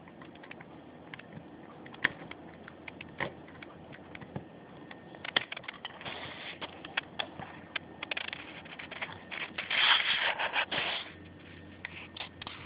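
Knife blade scraping and prying under a solar laminate's bus bar, cutting through the shellac to lift it: scattered small clicks and short scrapes, with the longest and loudest scrape about ten seconds in.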